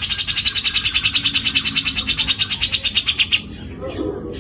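Cucak jenggot (grey-cheeked bulbul) giving a harsh, coarse chattering rattle, a fast even string of about ten notes a second, that stops about three and a half seconds in.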